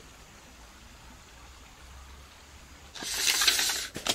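Faint background hiss, then about three seconds in a loud crinkling rustle of plastic-foil sheeting lasting about a second.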